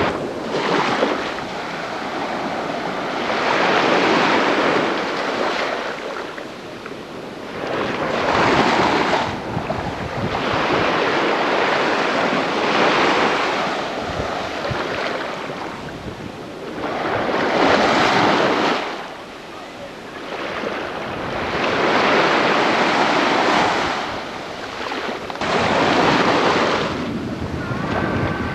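Surf washing onto a sandy beach: waves break and wash up about every four to five seconds, each one swelling and then falling away.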